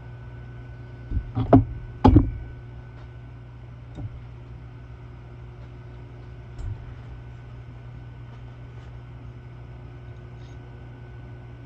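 A few sharp knocks of parts or tools being handled, a quick cluster of them about a second or two in and two lighter single knocks later, over a steady mechanical hum.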